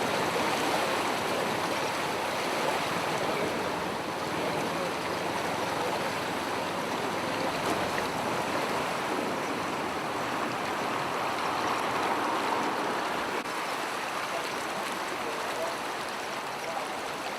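Floodwater rushing and flowing steadily, a constant even rush with no breaks.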